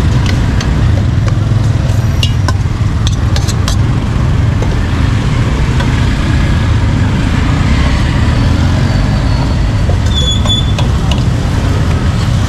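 Steady low rumble of street traffic, with a few sharp clicks about two to four seconds in and a brief high ring near the end.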